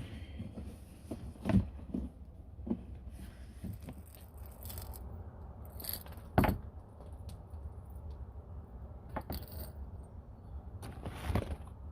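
Small metal clinks, scrapes and knocks of hand work on a loose fitting, with a sharp knock about six seconds in, over a steady low hum.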